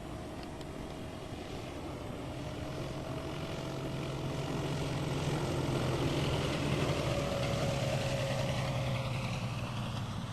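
Titan Tornado light aircraft flying over, its engine and propeller growing louder to a peak about two-thirds of the way through, the pitch dropping a little as it passes, then fading.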